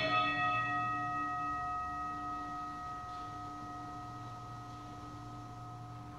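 An altar bell struck once at the elevation of the chalice during Mass. It rings on with a long, slowly fading tone made of several steady pitches.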